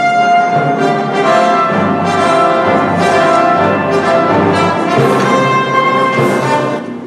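Orchestral music with brass, a melody of held notes; it drops away just before the end.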